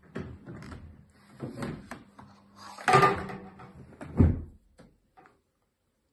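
Pull-out section of a fabric sofa bed being slid and handled: a string of knocks and sliding thumps, the loudest about three seconds in and another just after four seconds.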